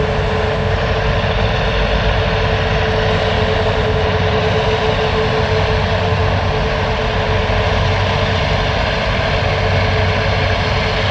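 Jet engines of an Emirates Airbus A380 running at taxi power as the airliner rolls by: a steady rush of jet noise with one steady tone above it.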